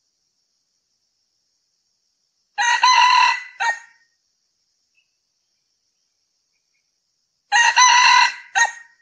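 Male red junglefowl crowing twice, about five seconds apart. Each crow is a short rooster-like call that ends in a brief clipped final note.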